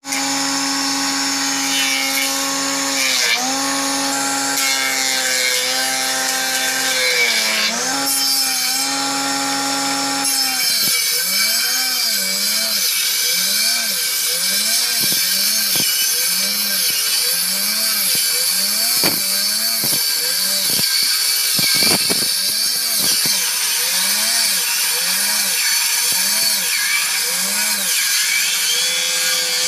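Electric woodworking planer running as a log is pushed across its cutter, the motor's hum sagging in pitch under the load of the cut over a steady cutting hiss. From about a third of the way in, the dips come regularly, roughly one every second and a half.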